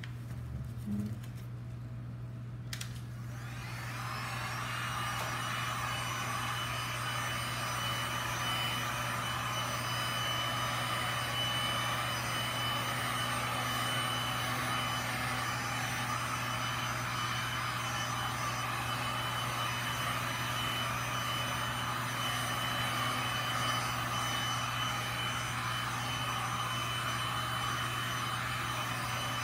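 Electric heat gun switched on about three seconds in, its fan spinning up with a rising whine and then running steadily with a rush of hot air, blown over wet epoxy resin to warm it and keep it flowing.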